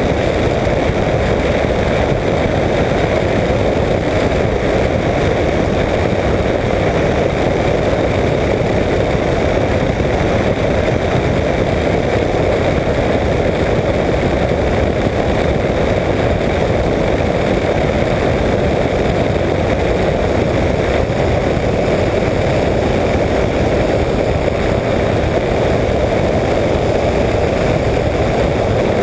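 Apollo Jet Star microlight trike in flight, its pusher engine and propeller making a steady, unbroken drone.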